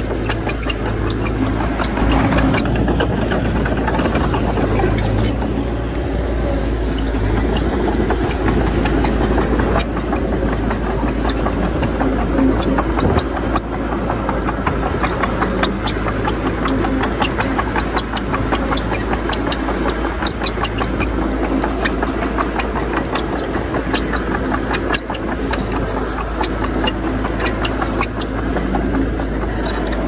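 Bulldozer's diesel engine running steadily, with a continuous clatter of small knocks over it.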